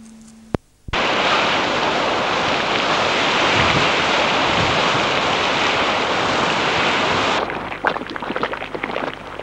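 Geyser erupting: a loud, steady rushing hiss of its steam and water jet. About seven and a half seconds in this gives way to the irregular popping and plopping of a boiling mud pool.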